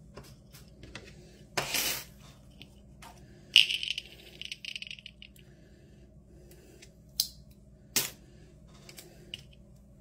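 Metal snap-jewelry charms clinking and rattling against one another as a hand rummages through a heap of them, loudest about four seconds in. Then a few sharp clicks as a snap charm is handled and pressed into a snap ring.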